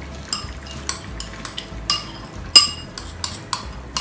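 A metal spoon clinking and scraping against a bowl and the pan rim as toasted nuts are tipped into a pan of simmering carrot halwa: about ten sharp clinks at irregular intervals, the loudest about two and a half seconds in.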